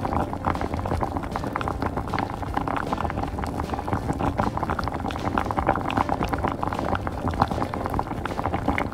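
Water at a rolling boil in a miniature stainless steel saucepan: a steady, dense bubbling and popping.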